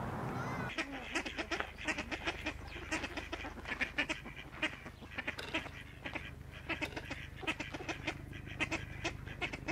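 House sparrows chirping: many short chirps, several a second and often overlapping, starting about a second in.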